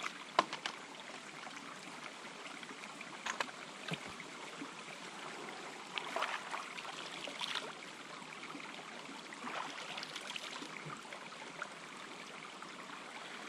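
A small creek running steadily over rock, with a few light knocks early on and several short splashes as hands dip into the water.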